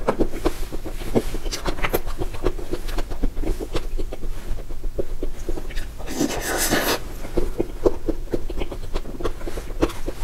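Close-miked eating of a soft mousse cake dessert from a spoon: wet, sticky chewing and lip smacks in quick, irregular clicks. About six seconds in, a louder breathy rush comes as a spoonful goes into the mouth.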